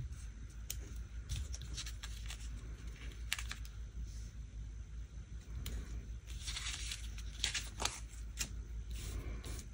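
Small paper planner stickers being peeled off a sticker sheet with metal tweezers and pressed onto a paper planner page: faint, scattered rustles and light ticks.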